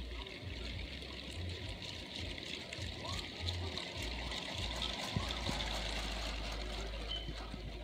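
Long Lego 9V train with two 9V motors running around the track: a steady hiss from many wagons' wheels rolling on the rails, with a few faint clicks about halfway through.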